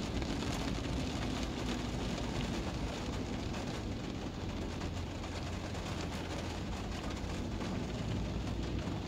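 Car tyres hissing on wet asphalt and rain pattering on the windshield, heard from inside a moving car over a steady low road rumble.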